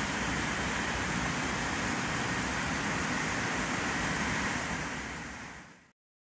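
Steady rushing background noise that fades out near the end and gives way to silence.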